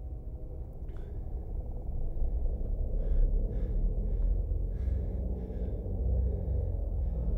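A low, rumbling suspense drone swelling under a tense scene, with a sharp click about a second in. Several short breaths or gasps come over it from about three seconds in.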